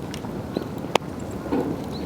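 Wood campfire burning with a low rushing sound and scattered small crackles, and one sharp loud pop about a second in.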